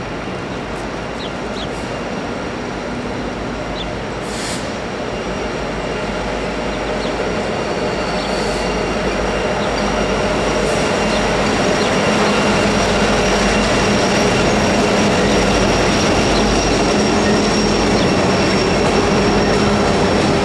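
BNSF diesel locomotives leading an empty coal train pass close by, their rumble growing louder through the first half. Empty coal hopper cars then roll by on steel wheels, with a thin steady high tone over the noise.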